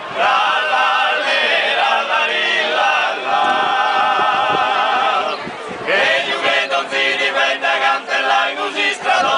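Sardinian male folk choir singing a trallallera a cappella, several close-harmony voices holding long sung notes together. The voices dip briefly about five and a half seconds in, then come back in full.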